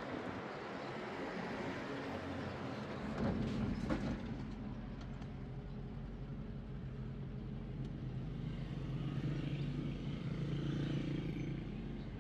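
An engine running steadily: a low hum that comes in about three seconds in, over a steady hiss, and grows a little louder toward the end.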